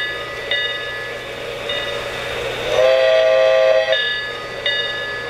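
Sound system of a 3-rail O-scale model train: a locomotive bell rings repeatedly, broken a little past halfway by a single horn chord about a second long.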